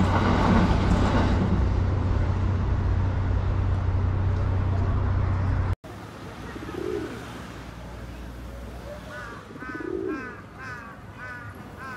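A train running past on an elevated track: a loud steady rumble with a low hum, cut off suddenly about six seconds in. Then pigeons coo twice, low, with a run of short high bird chirps near the end.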